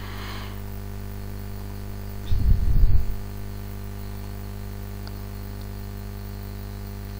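Steady low electrical hum with a faint buzz. About two and a half seconds in, a brief low rumble lasts under a second.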